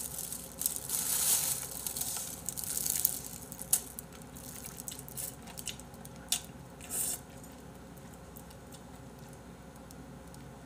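Wet, squishy chewing and sucking of bone-in chicken feet in spicy sauce for the first few seconds. After that come a couple of sharp clicks and a short crinkle of plastic wrap on a takeout container about seven seconds in.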